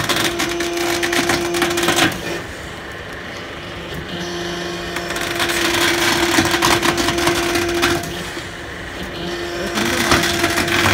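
Hydraulic single-hook tyre debeader stripping the steel bead wire from a truck tyre. A steady hydraulic pump hum rises under load in three pulls, with short breaks about two seconds in and near the eighth second. Each pull brings crackling and creaking as the bead is dragged out of the rubber.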